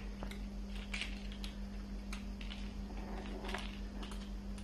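A kitten playing with a small toy on a tile floor, making scattered light clicks and taps at irregular intervals, over a steady low hum.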